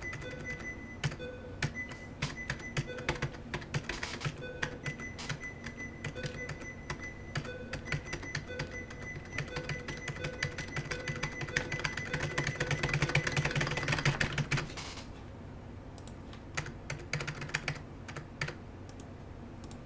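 Computer keyboard keys (Ctrl and Alt) clicking rapidly, with a strange steady ringing tone coming through the computer's generic reverb effect. The sound thickens and grows louder about eleven seconds in, then cuts off suddenly about fifteen seconds in, leaving sparser key clicks.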